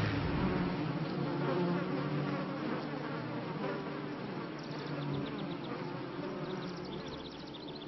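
Buzzing of a flying insect's wings, slowly fading. Two brief runs of faint, high, chirping ticks come in about five seconds in and near the end.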